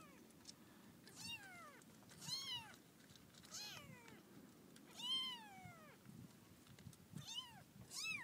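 Young kitten mewing repeatedly: about six high-pitched calls, each rising and then falling in pitch.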